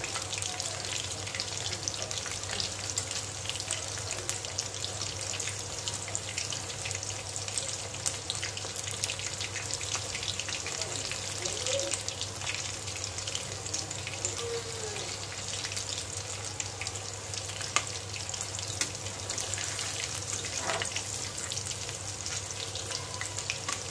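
Chicken pakoda pieces shallow-frying in hot oil in a metal kadhai: a steady crackling sizzle, while a metal spatula turns the pieces. One sharp tap about eighteen seconds in.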